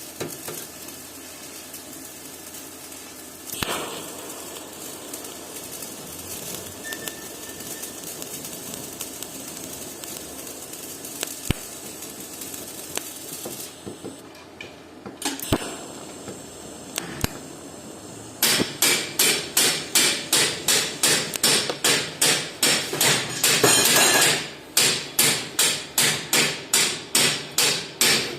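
Hammer striking metal in a steady rhythm, about two to three blows a second, starting about two-thirds of the way in. Before that, a steady hiss with a few single sharp knocks.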